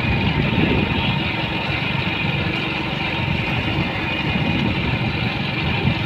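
Motorcycle engine running steadily while being ridden, with a constant rush of noise over it.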